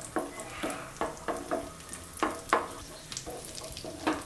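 Cashews and raisins frying in ghee in a nonstick pan, sizzling under repeated strokes of a wooden spatula stirring them against the pan, about two or three strokes a second.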